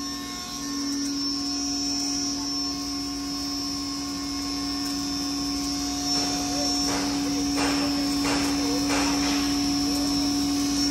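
20 HP double-chamber stoneless grinder with its 16-inch blower running steadily while grinding, a steady hum with a strong even tone. From about six seconds in come a few short rustling scrapes as ground flour is handled in a steel drum.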